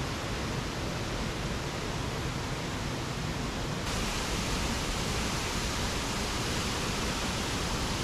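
Waterfall's steady rush of falling water, with its hiss growing suddenly brighter about four seconds in.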